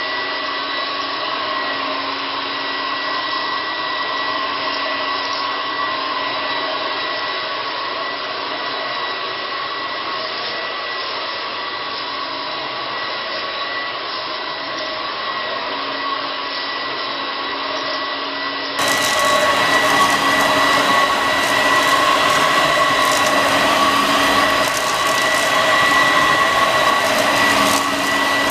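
Homemade bagless cyclonic upright vacuum cleaner running steadily while vacuuming a shag rug: a constant rushing motor whine with a high steady tone, turning suddenly louder and brighter about two-thirds of the way through.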